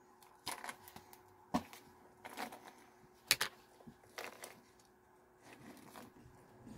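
Cheetos Flamin' Hot Minis rattling and sliding inside their cardboard snack canister as it is tipped up and poured into the mouth: a scattering of short clicks and rattles, the sharpest about three seconds in.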